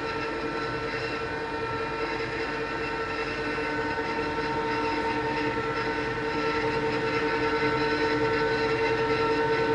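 K+G Wetter MAW D 114 mixer-grinder running under its 9 kW electric drive: a steady motor hum with a few held tones, growing a little louder about seven seconds in.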